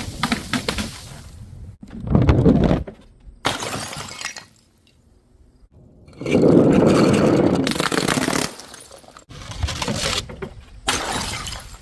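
Glass bottles smashing one after another: a string of sudden crashes with shattering glass and scattering shards, the loudest and longest about six seconds in, running for a couple of seconds, with a brief quiet gap just before it.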